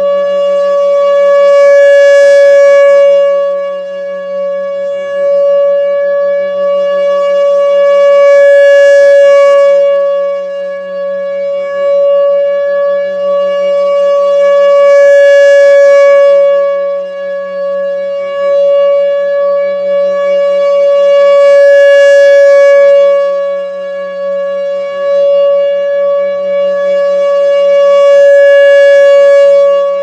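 Federal Signal Thunderbolt 1000 single-tone outdoor warning siren sounding a steady tone during a test. Its rotating horn sweeps past, so the sound swells loud and fades about every six and a half seconds, five times.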